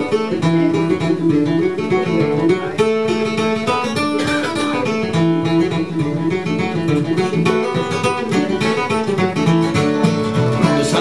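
Bluegrass string band playing an instrumental intro: acoustic guitar with quick plucked melody lines over a steady beat.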